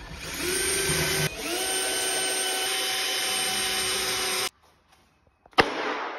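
A yellow DeWalt cordless drill running in bursts, drilling pocket holes through a jig and driving screws into pine boards. Two long runs, each whining up in pitch as the motor spins up, are followed near the end by a short burst that starts with a sharp click.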